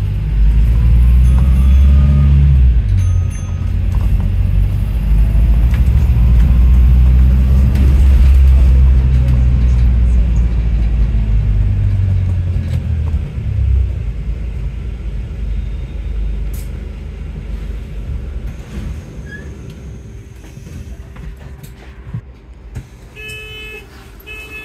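Inside a London bus on the move: a heavy low rumble from the drive, with whines that rise in pitch several times as it pulls away and picks up speed. About fourteen seconds in it eases off and goes quieter as the bus slows. Near the end, rapid electronic beeping starts.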